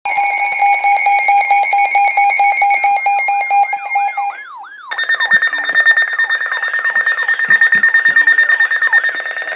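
Several weather radios sounding their alert alarms at once for an incoming flash flood warning. A rapidly pulsing electronic beep is joined by a repeating swooping siren-like tone. A little over four seconds in the beeping briefly drops away, then resumes at a higher pitch.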